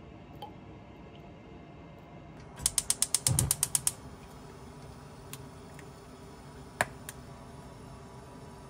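Gas range burner's spark igniter clicking rapidly, about a dozen sharp ticks in just over a second, with a low thump partway through, as the burner is lit. A single click comes later.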